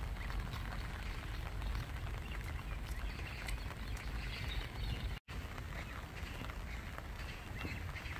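Rain pattering on a lake surface, with a low rumble underneath and high calls of great crested grebe chicks begging for food. The sound cuts out for an instant about five seconds in.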